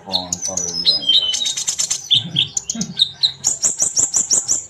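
Sunbird (kolibri ninja) song: a busy stream of high, fast chirps and trills, ending in a quick run of repeated high notes.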